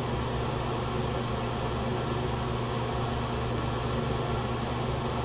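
Steady room tone: a constant low hum under an even hiss, unchanging throughout.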